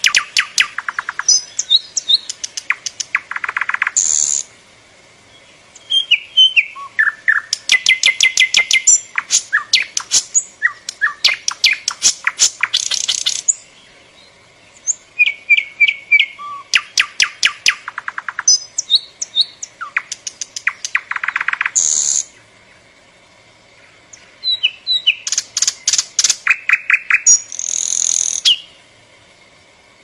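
Nightingale singing: loud phrases of rapid repeated notes, trills and short whistles, each lasting a few seconds, with pauses of a second or two between them.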